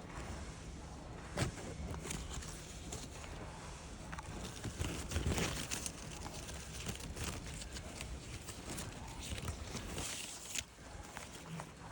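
Rustling and handling noise, with a sharp click about a second and a half in and a louder stretch of rustling around five seconds, over a faint steady low hum.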